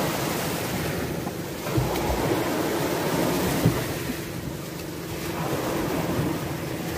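Sea water washing around a small outrigger fishing boat, with wind buffeting the microphone and a few light knocks.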